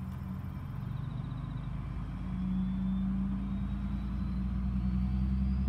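An engine running steadily and growing louder, as a vehicle comes closer.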